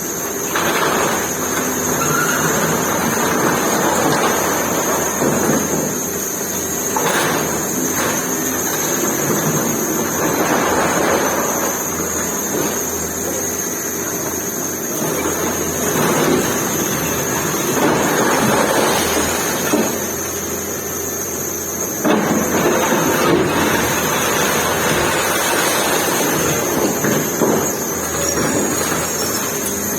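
Hydraulic excavator running under load while its bucket breaks up a building: steady engine noise with repeated knocks, crunches and the clatter of falling debris. A thin, steady high-pitched whine runs underneath.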